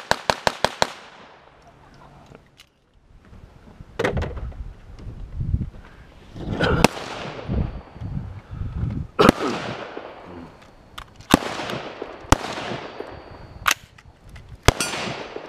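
Gunshots: a fast string of about seven shots right at the start, then single shots every second or two, each trailing off in an echo. Low rumbling thuds sit in between.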